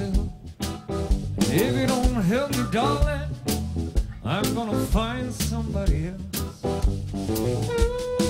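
Beatboxing into a cupped handheld microphone: mouth-made drum hits with arching, sliding vocal tones over them, and a held tone near the end.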